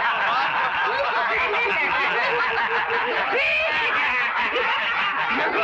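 A group of men laughing and snickering together at someone's expense, many voices overlapping in a steady stream of mocking laughter.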